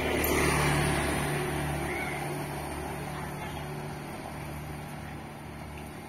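A road vehicle passing close by. It is loudest about half a second in and fades away over the next few seconds, over a steady low hum.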